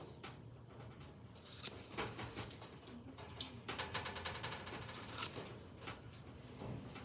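A Nokia XR20 smartphone being handled and turned over in the hands, giving faint scrapes, taps and a few sharp clicks against a low steady hum.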